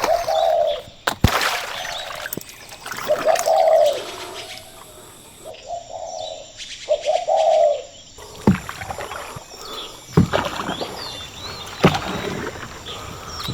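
Birds calling: a repeated cooing call, four times in the first eight seconds, with small chirps above it. In the second half, sharp knocks come about every second and a half to two seconds, from the oar strokes of a small rowing boat.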